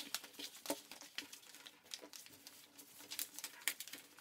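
Origami paper being folded and creased by hand on a tabletop: irregular soft crinkles, rustles and taps.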